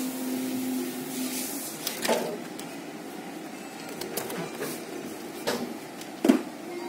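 Cardboard, paper and plastic wrap rustling and knocking as a parcel is handled, with a sharp knock near the end. Under it runs a steady machine hum that drops out for a couple of seconds.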